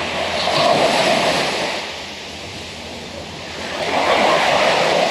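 Ocean surf breaking and washing up the beach, swelling twice: about a second in and again near the end.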